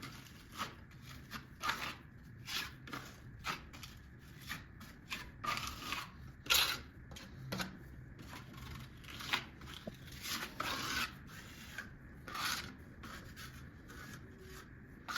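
A series of short, irregular scraping strokes, roughly one a second, some louder than others, from hand work on building material.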